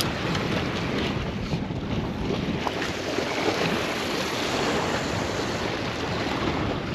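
Wind buffeting the microphone: a steady, gusting rush of noise.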